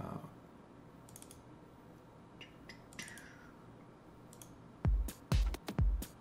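A few faint computer mouse clicks, then about five seconds in a 128 bpm minimal techno drum loop starts playing as a sample preview: punchy kick drums about twice a second with crisp hits on top.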